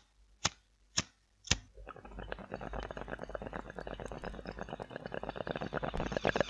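Three sharp clicks in the first second and a half, then a glass bong's water bubbling and gurgling as smoke is drawn through it, a rapid stream of pops growing steadily louder.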